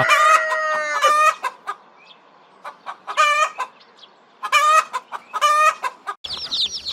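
Rooster crowing: the end of a long crow, then a few shorter calls. Near the end, after a sudden change, chicks start peeping rapidly.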